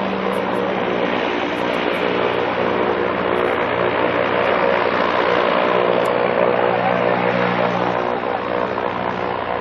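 Zeppelin NT airship taking off, its three piston engines and propellers running with a steady drone. The sound grows a little louder toward the middle as the airship comes closer, then eases slightly near the end.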